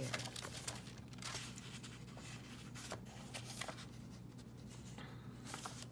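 Faint rustling and light taps of paper being slid and positioned by hand on a book page.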